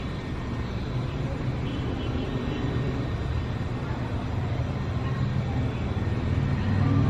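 City traffic ambience: a steady low rumble of passing vehicles that swells louder near the end.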